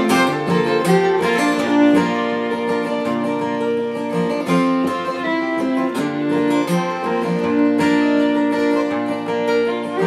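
Two acoustic guitars strumming and a fiddle bowing together in an instrumental passage, without singing.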